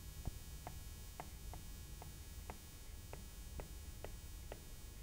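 Faint, irregular taps of a stylus on a tablet screen during handwriting, about three a second.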